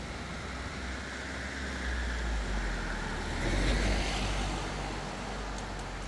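A road vehicle passing, its tyre and engine noise swelling about two seconds in and fading again by four and a half, over the steady rush of a shallow stream.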